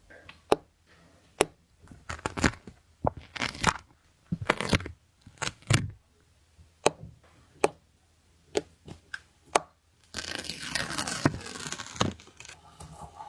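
Stickers being handled and peeled: a run of sharp taps and short peeling rips, then a continuous crinkling, tearing sound for about two seconds near the end.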